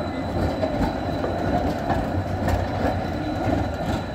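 Graz Stadler Variobahn low-floor tram rolling past on a curve over street track. A steady low rumble with irregular clicks as the wheels run over the rails.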